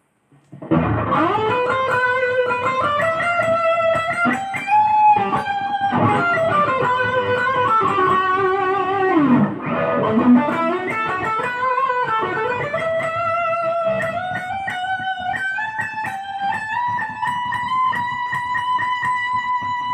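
Barclay Les Paul-style electric guitar playing a single-note lead melody with string bends and vibrato, starting about half a second in and ending on a long held note.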